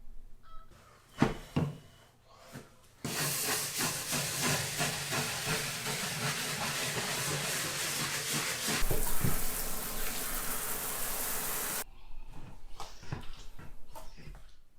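Shower spraying water in a bathroom, rinsing the bath, from about three seconds in until it stops abruptly near twelve seconds. A few light knocks come before and after it.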